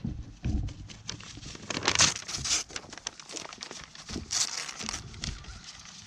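A goat biting and pulling at a paper sign: paper crinkling and tearing in a run of sharp crackles, with two louder bursts about two seconds and four and a half seconds in.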